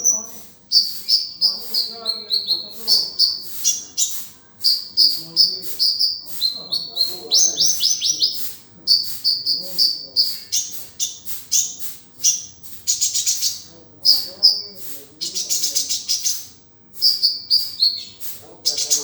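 Olive-backed sunbird ('kolibri ninja') singing: rapid, repeated high-pitched chirps and short trills, broken by several harsher buzzy rattling phrases, with fainter lower-pitched warbling notes underneath.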